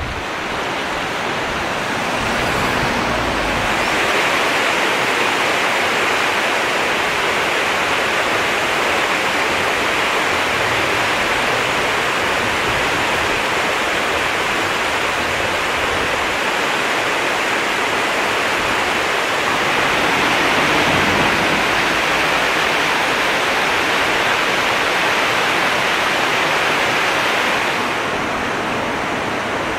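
River water rushing steadily. The rush grows a little louder over the first few seconds and eases slightly near the end.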